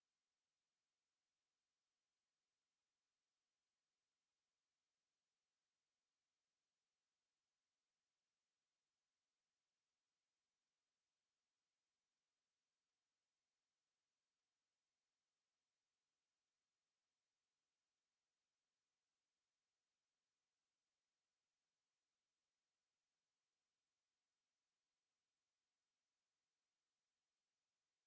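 A pure sine-wave test tone at 11932 Hz, a single very high, steady whistle held without change.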